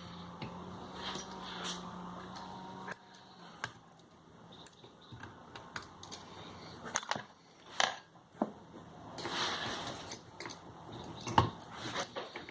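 Metal clicks, clinks and scrapes of a universal valve spring compressor and hand tools worked on a small-block Chevy cylinder head while the valve keepers are freed, with one sharp metallic knock near the end.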